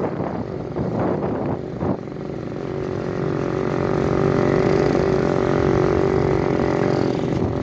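Motorcycle engine running as the bike rides along, growing louder about two seconds in and then holding a steady note.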